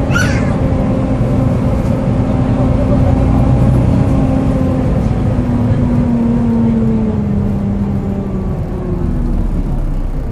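Volvo B7TL double-decker bus on the move, heard from the upper deck: its diesel engine and loud engine cooling fan give a steady, hoover-like droning whine. The drone drops in pitch in the second half.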